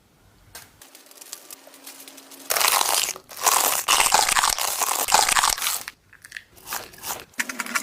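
A giant rolled tortilla chip (a taki) being bitten and chewed close to the microphone. The crunching is loud and dense from about two and a half seconds in for roughly three seconds, and a few more crunches come near the end.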